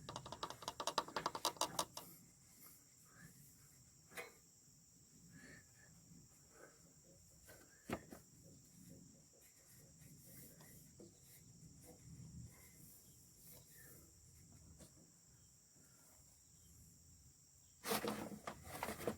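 Low-level sound of hands at work: a quick run of clicks in the first two seconds, scattered faint knocks and ticks, and a louder rustling burst near the end. A steady high insect drone, like crickets, runs underneath.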